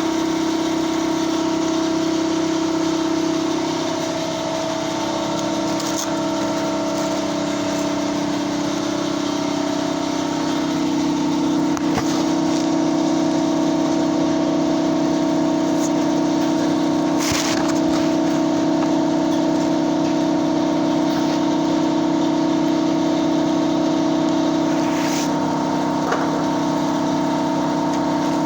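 A motor running at a steady, unchanging pitch, with a few sharp clicks or knocks scattered through it.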